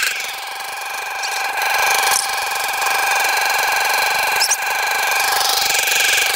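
Car engine held at full throttle on the rev limiter by a brick on the gas pedal, a steady high-pitched whine, running with its coolant drained.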